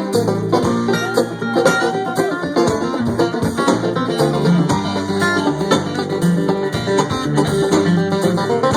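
Live bluegrass band playing an instrumental break, with banjo, guitar and mandolin picking over a bass line.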